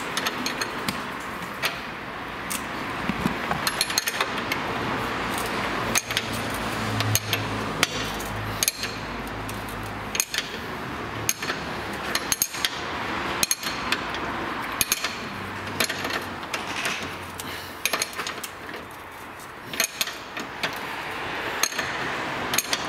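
Steel ring spanners clicking and clinking on the nut and bolt of a suspension control arm's eccentric adjuster as the nut is tightened, in short irregular clicks.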